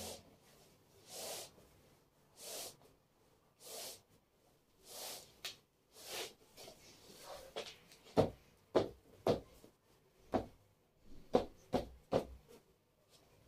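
Household cleaning sounds: a series of soft swishing strokes about once a second, then, about eight seconds in, a run of sharp knocks and clatters as hard objects are handled and set down.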